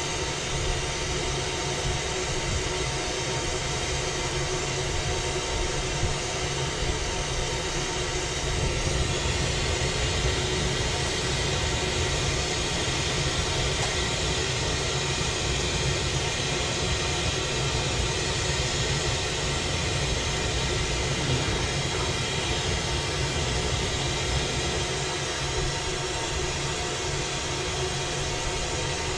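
Glassblowing bench torch burning steadily with a broad rushing hiss, over a constant hum, growing a little brighter about nine seconds in.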